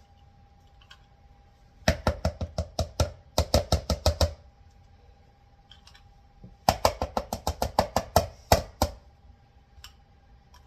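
A spoon clinking against a bowl in two runs of quick strokes, about five a second, each run lasting a couple of seconds, as seasonings and bouillon paste are mixed into cream of mushroom soup.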